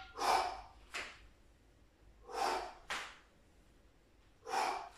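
A man breathing forcefully in rhythm with exercise reps. There are three noisy breaths about two seconds apart, and each of the first two is followed closely by a shorter, sharper breath.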